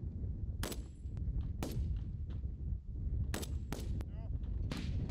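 Rifle fire on a firing range: five sharp single shots at uneven intervals, with fainter shots further off in between, over a steady low rumble.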